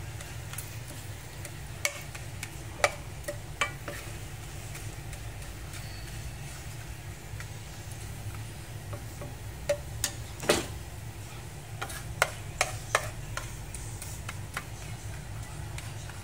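Wooden spatula stirring rice and whole spices in oil in a frying pan, with sharp knocks of the spatula against the pan now and then, loudest in clusters near the middle and later on. A low steady hum runs underneath.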